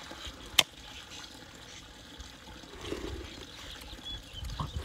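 A single sharp click about half a second in, from fingers handling an aluminium soda can, over a faint, steady hiss of outdoor background noise.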